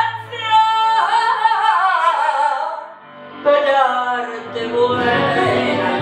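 A woman sings a wordless, wavering melodic line into a microphone, holding a long note about a second in. She breaks off briefly about three seconds in, then sings on as a low pulsing accompaniment comes in.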